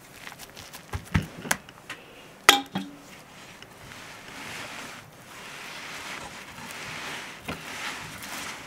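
A few light knocks and one sharp, ringing clink of kitchenware about two and a half seconds in, then the soft scraping of a table knife spreading creamy filling over a liver pancake layer on a wooden board.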